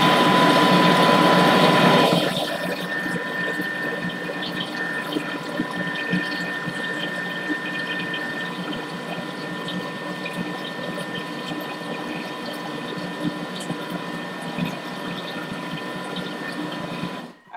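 Thermomix motor running at speed 5, mixing cheesecake batter until smooth: a steady running hum with the batter churning in the bowl, louder for the first two seconds, then settling lower, and cutting off abruptly just before the end as the motor is stopped.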